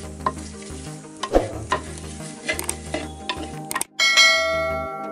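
A wooden spoon stirring sliced onion, green chilies and curry leaves in a clay pot, scraping and knocking against the pot over a sizzle, for onions sweated without oil. About four seconds in the sound cuts out for a moment and a bright chime rings out and fades, a subscribe-button sound effect.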